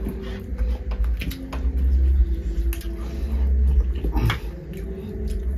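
Eating sounds: chewing and mouth smacks with small clicks of fingers and food against plates while eating rice and curry by hand, over a steady low hum. A sharper click comes about four seconds in.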